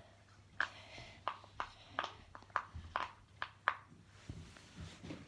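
Bubbles of a Hello Kitty silicone pop-it fidget toy being pressed in: a string of about ten soft pops at two to three a second, easy to pop.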